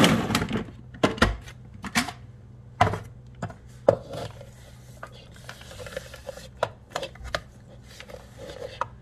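A food processor's motor cuts off just after the start. Then come several sharp plastic knocks and clicks as the lid is handled, and a spatula scraping ground nut paste down the sides of the plastic bowl.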